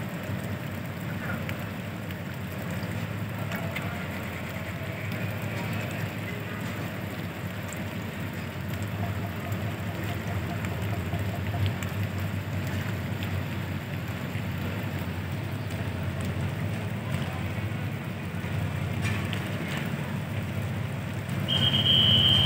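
Heavy rain falling, over a steady low rumble. Near the end a loud, high, shrill steady tone starts, like a whistle.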